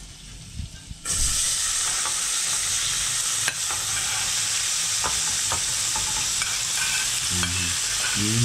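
Vegetables tipped into a pan of hot melted butter start sizzling about a second in, a steady loud frying hiss, with a few sharp clicks of the spoon against the plate and pan.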